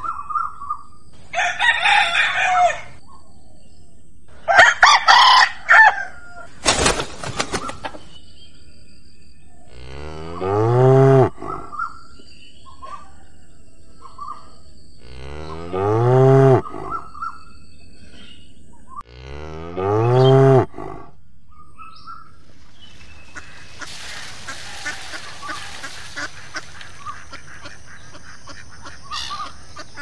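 A rooster crows twice, then a cow moos three times in long, low calls, each lasting about a second and a half.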